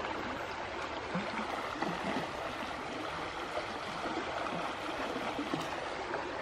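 Steady rush of flowing water from a waterfall and its stream.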